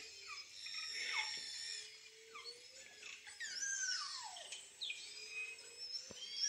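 Underwater hydrophone recording of beluga whales whistling, many quick high whistles overlapping and sweeping up and down, over a lower, slowly rising call from a bowhead whale.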